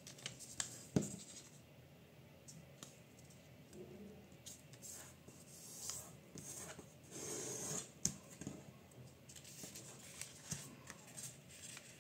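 A sheet of A4 printer paper being folded and creased by hand on a hard tabletop: faint rustling and scraping strokes as fingers slide along the folds, with a few light taps. The longest stroke comes about two-thirds of the way through.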